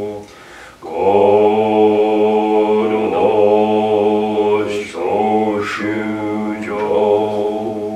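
Two men chanting a Soto Zen chant in unison on one held, monotone pitch. There is a breath pause just after the start, the chanting resumes about a second in, and it stops again right at the end.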